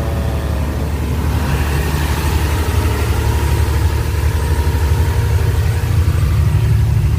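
Fishing boat's inboard diesel engine running steadily under way, a loud low hum, with the rush of water along the hull.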